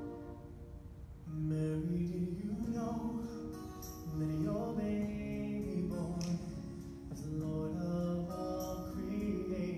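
A song: music with singing, a melody of held notes that comes in louder about a second in.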